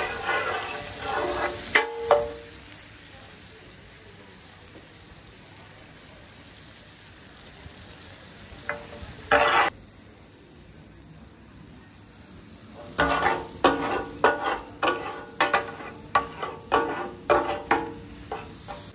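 Metal spatulas chopping and scraping chicken on a large flat tawa griddle, the rhythmic clatter that gives chicken katakat its name, over sizzling. The clacking runs for the first couple of seconds, gives way to quieter sizzling for about ten seconds, then resumes at about three strikes a second near the end.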